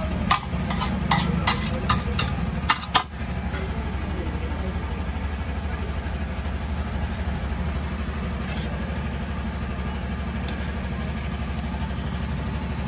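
A metal spatula scraping and tapping on a large flat iron tawa, several sharp strokes in the first three seconds, over a steady low engine hum that carries on after the scraping stops.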